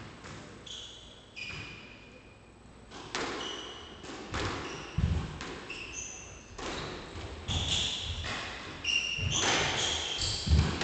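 A squash rally: the ball cracks off rackets and the walls in a string of sharp, echoing knocks, with short, high-pitched squeaks of court shoes on the wooden floor between the shots.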